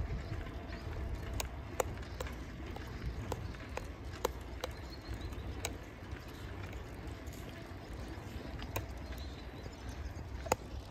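Bicycle riding on a paved path: a steady low rumble of wind and rolling noise, with irregular sharp clicks and rattles from the bike and the handheld phone, a few of them louder near the end.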